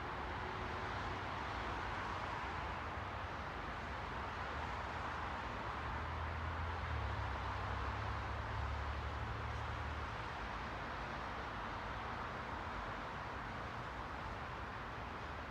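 Steady hissing noise with a low rumble underneath that grows louder from about six to ten seconds in, then eases back.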